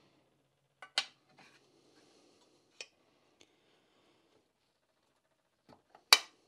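Metal parts of a Porsche G50 pedal cluster clicking and clinking as they are handled and fitted into the steel pedal box. A few sharp, separate clicks, the loudest near the end.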